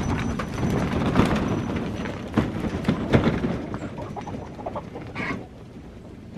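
Wheeled chicken coop pulled over a gravel lane: wheels and boots crunching on the stones and the frame rattling, fading as it moves off. Hens inside cluck, with a short call near the end.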